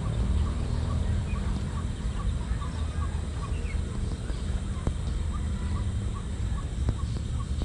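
A short animal call near 1 kHz repeating about three times a second over a steady low rumble, with a couple of faint clicks.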